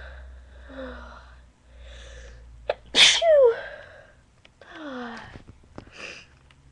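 A person with a cold and allergies sneezing once, loudly, about three seconds in. Breathy, voiced breaths with falling pitch come before and after the sneeze.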